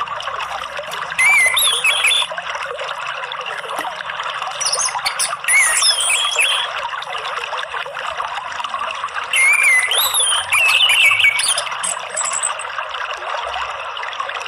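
Orange-headed thrush (anis merah) singing in several short, high-pitched, varied phrases over a steady trickle of running water.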